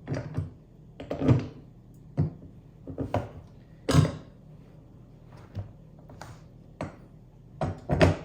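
Parts of a dump-bed garden cart being handled and fitted together during assembly: a series of irregular knocks and clunks, several a second at times, with short gaps between.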